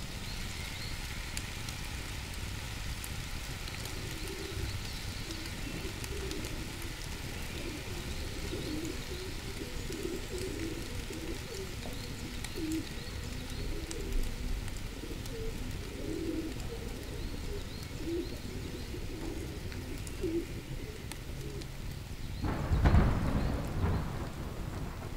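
Pigeons cooing again and again over a steady hiss, with a few faint high chirps early on. A short, louder low rumble comes near the end.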